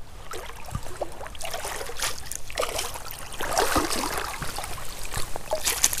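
Small hooked walleye splashing at the surface of a creek as it is reeled in and brought to the landing net, with water sloshing and dripping. The splashing grows from about a second and a half in and is heaviest near the end.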